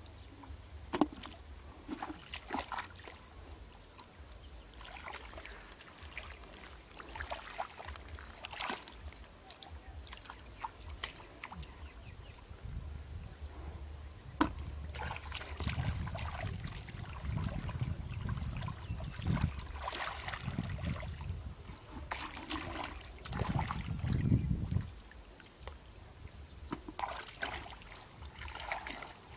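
Shallow muddy water splashing and sloshing as hands scoop and grope through it, in irregular small splashes. A low rumble runs through the middle stretch.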